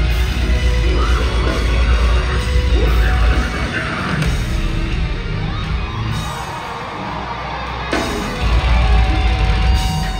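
Deathcore band playing live and loud through a theatre PA, with yelling over the music. The heavy bass and drums drop back for a few seconds in the middle and come crashing back in about eight seconds in.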